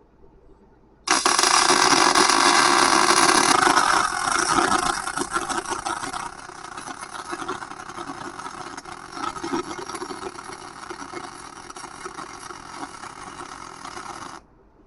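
MIG welder arc crackling as one continuous weld bead is run on a forklift rim. It starts abruptly about a second in, is loudest for the first few seconds, then goes on more quietly and cuts off abruptly near the end.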